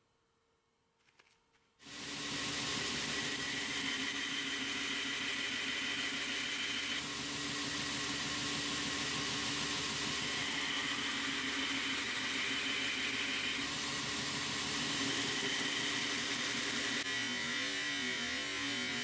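Near silence, then about two seconds in a belt grinder comes in, running with a steady whir and hiss. Near the end the sound turns rougher as a heat-treated high-speed steel chisel blank is ground against the belt, throwing sparks.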